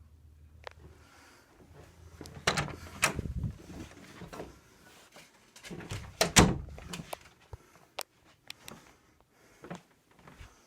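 Knocking and rattling handling noises in two bursts about three seconds apart, followed by a few scattered sharp clicks.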